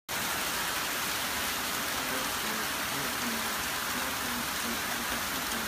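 Torrential rain and hail pelting down in a steady, dense hiss.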